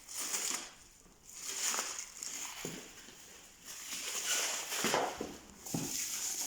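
Rustling and crinkling as a cryolipolysis machine's treatment handle and its parts are handled, with three light knocks in the second half.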